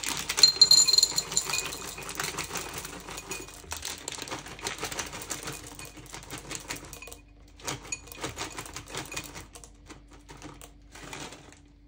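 Chocolate drops poured from a plastic bag into a cup on a kitchen scale: a dense rattle of small clicks, heaviest in the first two seconds and thinning out. After a short pause, a few shorter pours follow near the end.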